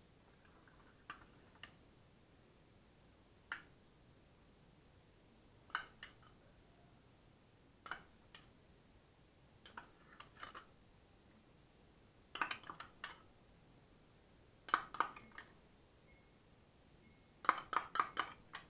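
A spoon clinking and tapping against a bowl as herb marinade is spooned out. Single light clinks every couple of seconds turn into small clusters, ending in a quick run of five or six taps near the end.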